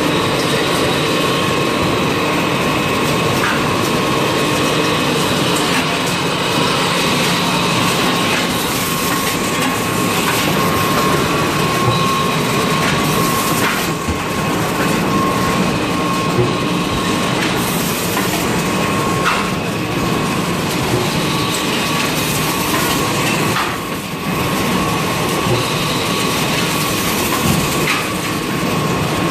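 CIL-SP-J25A toilet-roll and kitchen-towel bundling packaging machine and its conveyors running: a continuous mechanical clatter with a constant whine. A few sharp knocks come through along the way.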